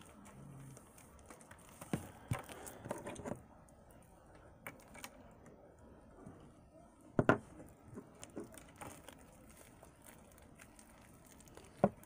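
Hands kneading and stretching homemade slime: soft sticky squishes with scattered clicking pops, a few sharper pops about two, seven and twelve seconds in.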